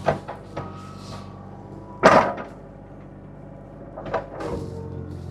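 A John Deere mini-excavator's diesel engine runs steadily while the bucket and thumb work logs, making several sharp clunks; the loudest comes about two seconds in.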